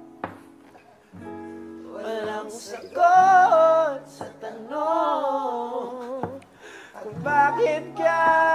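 Acoustic guitar strummed in chords, with a voice singing a wavering melody over it in short phrases.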